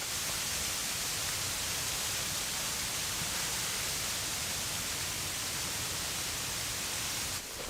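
Steady rushing hiss of snowstorm wind that starts abruptly and drops away shortly before the end.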